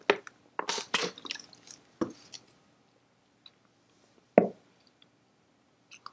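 A person sipping from a glass and swallowing: a few short, wet slurping and gulping sounds in the first couple of seconds, then one short, louder sound about four and a half seconds in.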